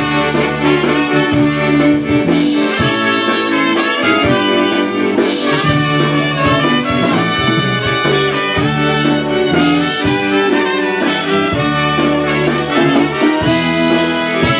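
Live polka band playing an instrumental passage: two trumpets carry the melody together over electric bass guitar and a steady beat.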